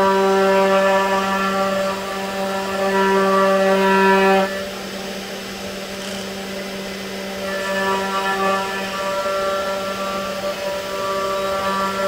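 CNC router spindle running a cheap 60-degree V-bit through plywood: a steady pitched hum with many overtones. The owner blames the noise on a poor cutter with only one edge really cutting. The hum drops sharply about four and a half seconds in and comes back from about seven and a half seconds.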